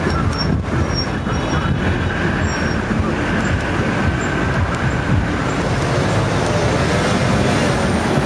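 Road traffic on a city street: cars and vans driving past, a steady rumble of engines and tyres.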